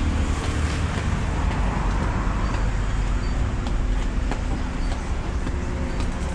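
Steady road-traffic noise: a continuous low rumble of vehicles running along the adjacent street.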